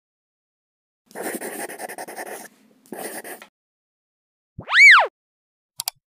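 Sound effects of an animated logo intro: a rough, fluttering noise twice, then a single loud tone that sweeps up and back down, then a quick double click near the end like a mouse clicking a button.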